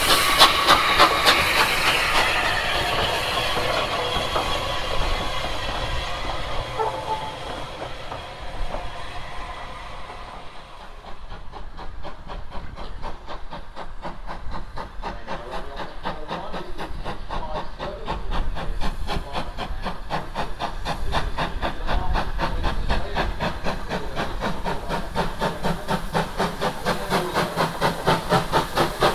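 Steam locomotive with a train: loud hiss of steam at first, dying away over about ten seconds, then a steady rhythmic beat of the engine working that grows louder near the end.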